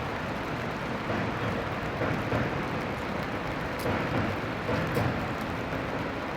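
Steady outdoor city ambience with a low rumble, like distant traffic. Two faint sharp ticks come about four and five seconds in.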